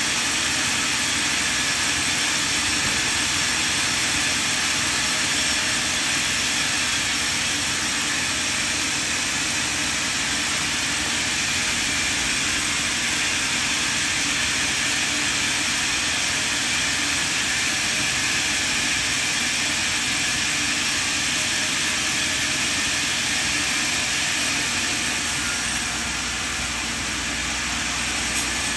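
Large log band saw running, its vertical blade cutting lengthwise through a big log on the carriage: a steady, even noise with a faint whine. A deeper rumble joins near the end.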